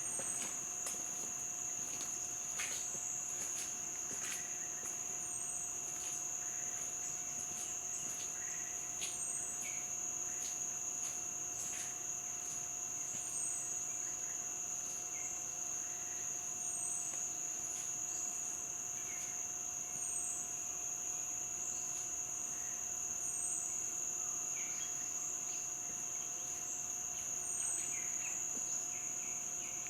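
Steady high-pitched insect drone over the wash of a flowing stream, with a weaker lower steady tone beneath. A short falling chirp comes every couple of seconds, and faint clicks are scattered through.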